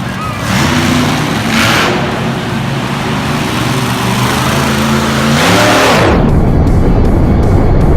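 Monster truck engine revving, its pitch rising and falling, with a sharp climb in revs about five and a half seconds in, after which it runs loud and steady.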